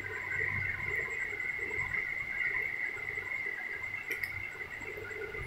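Scissors snipping through a rolled paper tube, a couple of short sharp snips about four seconds in, over a steady high-pitched background drone.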